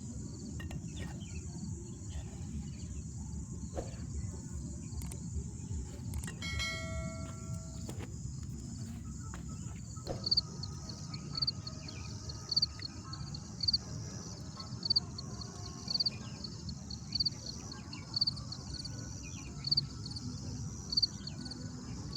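Outdoor forest ambience: a steady high insect drone over a low rumble, with a brief pitched call about a third of the way in and, from about halfway, a short high chirp repeated roughly once a second.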